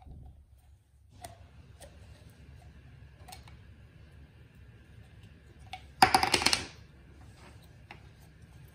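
Light clicks and taps of small hands handling a little plastic tube and its yellow plastic cap, then a brief loud rattle about six seconds in.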